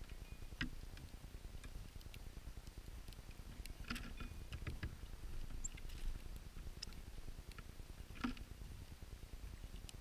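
A few sharp clicks and ticks from a female northern cardinal at a seed feeder, scattered over a faint low steady rumble.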